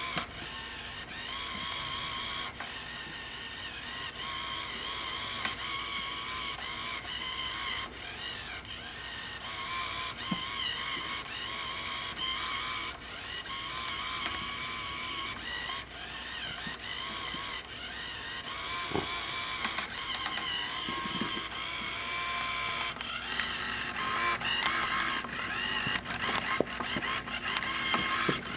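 Motorised Cat Links spinning-wand cat toy running: its small motor and gears whir steadily, the pitch wavering up and down as the wand swings around, with a few sharp clicks.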